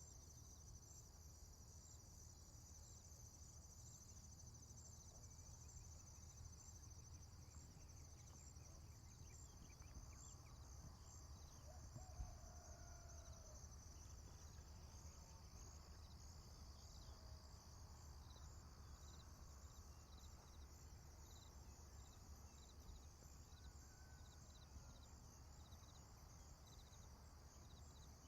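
Faint farm morning ambience: crickets chirping steadily in a high, pulsing chorus over a low steady rumble, with a few faint bird calls and a small knock about twelve seconds in.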